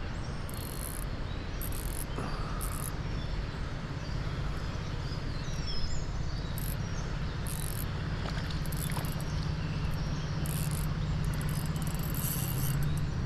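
Fishing reel's drag, set too loose, slipping and clicking steadily as line pays out while a hooked brown trout is played.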